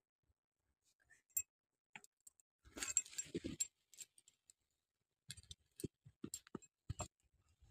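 Scattered light clicks and taps, with a brief rustle about three seconds in and a quick run of clicks near the end: handling noise as the phone is moved about.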